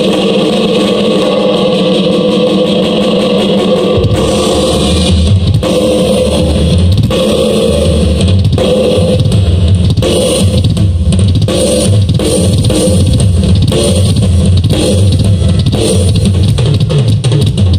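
A live rock band playing loud: held guitar chords, then about four seconds in the bass and drum kit come in with a steady driving beat.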